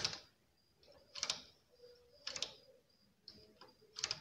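Domestic flatbed knitting machine clattering as it is worked: short metallic rattles of the needles and carriage, four of them about a second apart.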